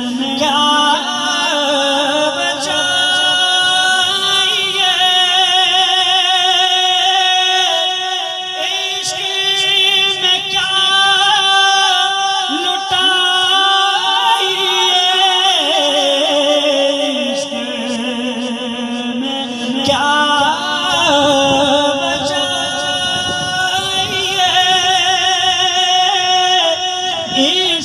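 A man singing an Urdu devotional kalam into a microphone without instruments, in long drawn-out melismatic phrases with a wavering vibrato on the held notes.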